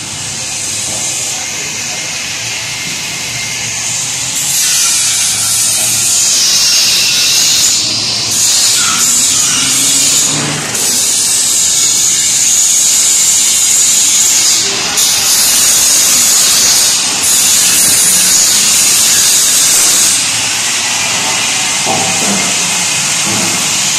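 Loud, steady high-pitched hiss, like air or spray under pressure. It swells about four seconds in and breaks off briefly a few times.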